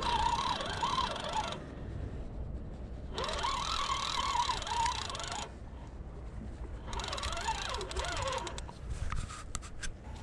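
Daiwa spinning reel being cranked under heavy load in three spells with short pauses between, its gears giving a whine that wavers in pitch with the cranking speed, as a hooked conger eel is wound in.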